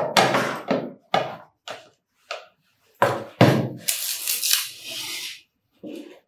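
Plate and serving bowl knocking and scraping against each other and the tabletop as the bowl of rice is flipped over onto the plate: a string of short clatters, with a longer scraping sound in the second half.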